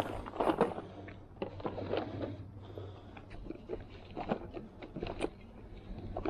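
Hands rummaging in a packed canvas bag: irregular rustling of the fabric with scrapes and small knocks from the things inside.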